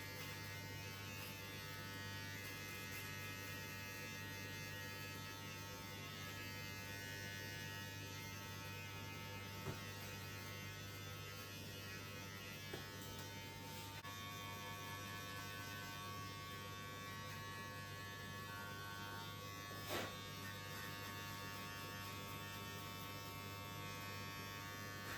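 Electric hair clippers running with a steady buzz, with a few faint ticks.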